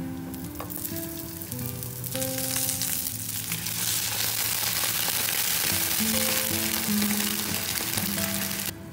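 Zucchini batons and sliced Chinese sausage sizzling in a frying pan, the sizzle swelling into a loud hiss as a splash of water is poured in. The hiss cuts off suddenly near the end.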